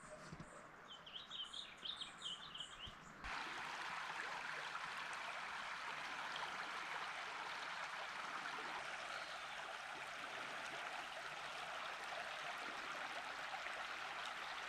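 Small birds chirping faintly for the first three seconds, then, from a sudden cut, the steady rush of a shallow river flowing over its bed.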